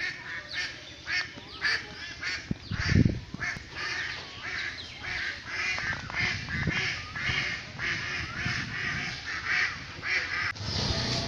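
Birds giving short, harsh calls over and over, like ducks quacking. There is a louder low thump about three seconds in.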